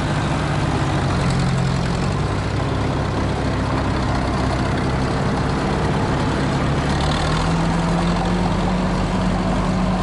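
Engines of old heavy equipment, a Case loader tractor and a Caterpillar crawler, running steadily. The engine note rises to a higher steady pitch about seven seconds in as the crawler is driven.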